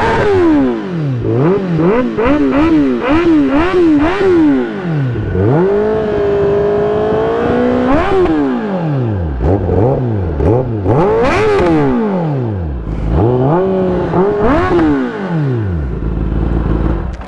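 Kawasaki ZX-10R's inline-four engine revved repeatedly through a loud exhaust. It starts with a string of quick blips, holds a steady higher rev for about two seconds, then makes several long rises and falls, and settles into a deep rumble near the end.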